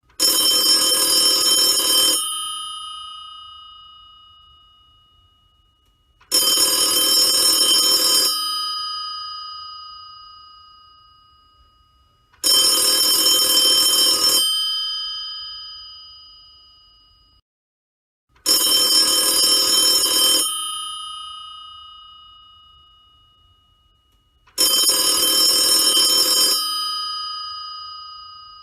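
Old telephone's mechanical bell ringing five times, each ring a two-second rattle that then rings out and fades, about six seconds from the start of one ring to the next.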